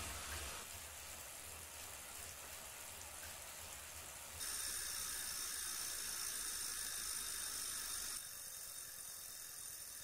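2018 Wahoo Kickr direct-drive smart trainer with a road bike on it running quietly: a soft, steady whir of the chain, cassette and flywheel while pedalled at about 13 mph in the big ring and middle cog. About four seconds in the rider stops pedalling and the sound changes to a louder, higher hiss-like whir of the freehub and flywheel spinning while coasting, which drops back down again shortly before the end.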